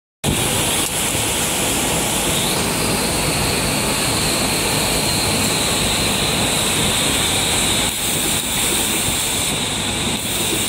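Steady factory machinery noise: a continuous loud hiss over a low hum, even throughout, with a few faint ticks.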